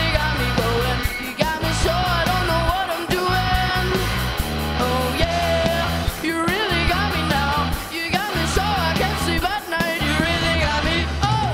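Rock band playing live with a lead vocalist singing over guitar, bass and drums.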